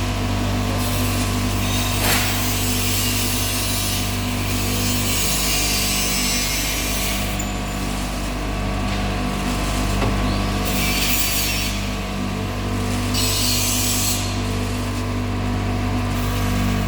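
Industrial continuous nut roasting machine running under factory test: a steady motor hum with a rasping hiss that swells and fades several times, and one sharp click about two seconds in.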